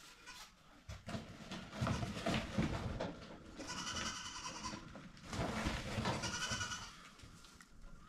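Goats bleating, two long calls about four and six seconds in, with shorter, quieter calls before them: hungry animals calling to be fed.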